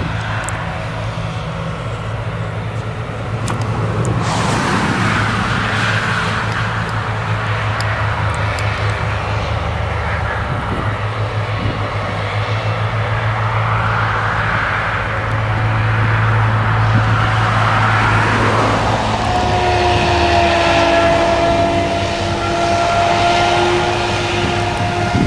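Claas Jaguar 970 forage harvester and its tractor-drawn silage trailer working a cereal field: a steady low engine drone with a rushing noise that swells and fades. A steady whine joins about twenty seconds in as the harvester comes close.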